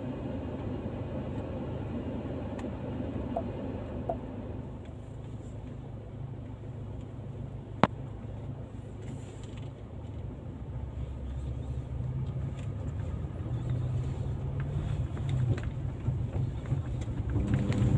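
Car engine running, a steady low rumble heard inside the cabin, growing louder over the second half. A single sharp click about eight seconds in.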